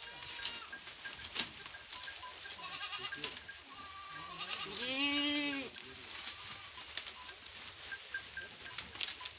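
Goats bleating while feeding on leafy fodder: several short calls, with one loud, drawn-out bleat about five seconds in, over scattered clicks and rustles as they tug at the leaves.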